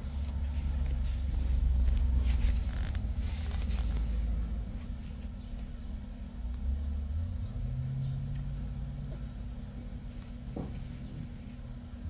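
A low vehicle rumble, loudest in the first few seconds and easing off after, with a brief low hum about two-thirds of the way through.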